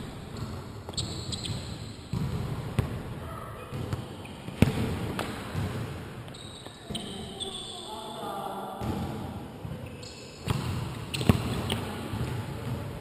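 Basketball bouncing and thudding on an indoor gym court during play, with short high squeaks from players' shoes and voices calling out, all echoing in the large hall. The sharpest hits come about four and a half and eleven seconds in.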